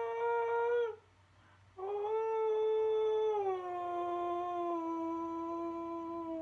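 Synthesizer lead playing slow held melody notes: one note ends about a second in, then after a short pause another note sounds and glides down to a lower note, which it holds.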